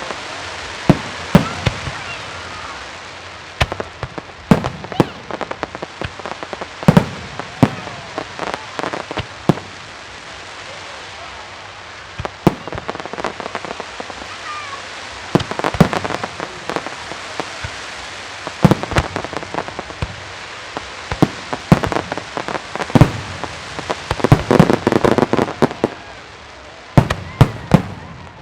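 Aerial firework shells bursting one after another at a professional display, sharp booms each with an echoing tail, with bursts of dense crackling about halfway through and again near the end.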